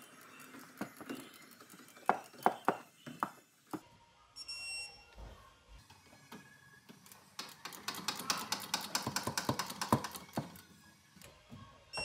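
Torque wrench tightening the rear brake caliper mounting bolts to about 44 ft-lb. A few loud separate ratchet clicks come about two seconds in, then a short high beep, then a fast run of ratchet clicking.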